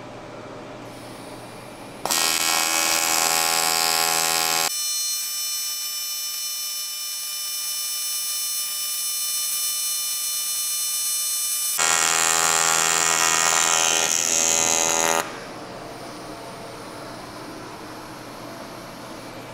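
TIG welding arc buzzing for about thirteen seconds, striking about two seconds in and cutting off suddenly; for several seconds in the middle its tone turns thinner and higher.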